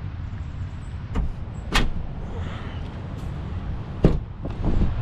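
Latch and sliding side window of an ARE camper shell being worked by hand: sharp clicks about two seconds in, then knocks and a bump about four seconds in, over a steady low rumble.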